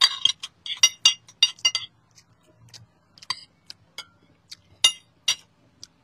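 Metal spoon and fork clinking against a ceramic plate during eating: a quick run of clinks in the first two seconds, then single clinks about once a second.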